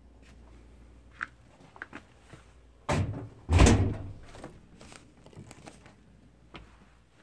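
A door being handled: two heavy thumps close together about three seconds in, with lighter clicks and knocks before and after.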